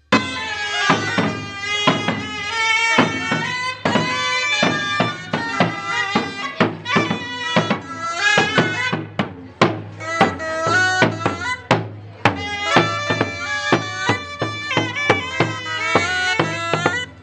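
Live procession music from a small wind pipe and double-headed rope drums: the pipe plays a high melody of quick stepping notes over a steady drum beat.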